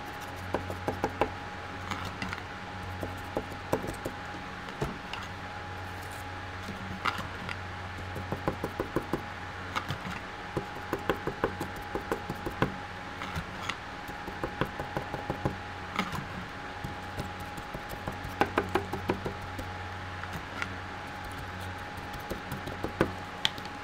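A small metal hand tool tapping and scraping on a thinner-soaked circuit board covered in solder blobs, in irregular clusters of sharp clicks, some in quick runs of several a second. A steady low hum runs underneath.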